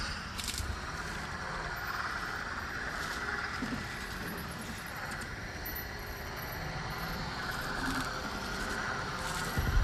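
Gunship engine sound effect: a steady drone, with a short low thump near the end.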